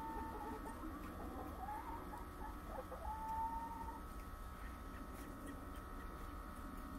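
Chickens making drawn-out calls: one near the start and a longer, even-pitched one about three seconds in, with shorter wavering calls between them.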